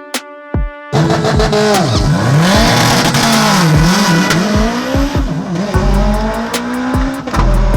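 A performance car's engine revving hard with tyres squealing, starting about a second in, its pitch swinging down and up as the revs rise and fall. A steady music beat thumps along underneath in the later part.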